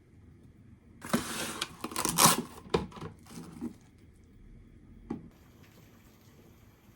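Kitchen food-preparation handling sounds: a couple of seconds of rustling and scraping with light clicks and knocks of utensils and dishes, then a single sharp click about five seconds in.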